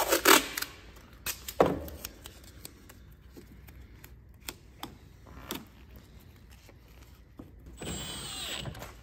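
A few sharp clicks and knocks of parts being handled, the loudest just after the start, then near the end a cordless drill-driver whirs for about a second, driving a screw at the grille.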